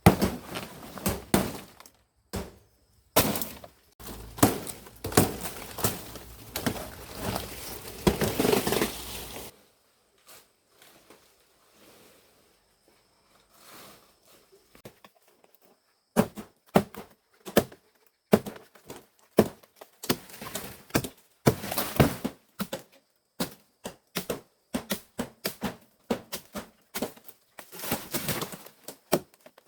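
Palm leaves being chopped and handled with a blade: irregular sharp knocks and cracks. A dense crackling, rustling stretch runs from about three to nine seconds in, then a quiet spell follows before a run of chopping knocks, about one or two a second.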